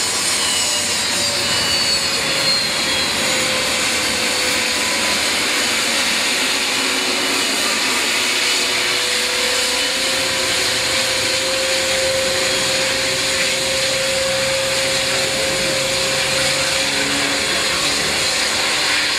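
The Beriev Be-200's two turbofan engines run at taxi power as the aircraft taxis: a steady jet rush with whining tones. A high whine falls in pitch over the first few seconds.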